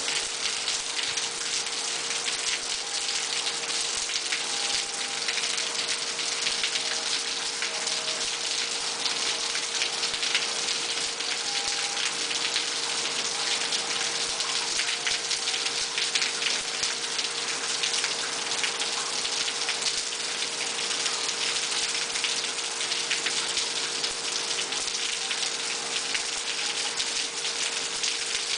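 Heavy rain falling steadily on a concrete patio and yard, a dense even hiss full of small drop splashes, with a faint steady hum underneath.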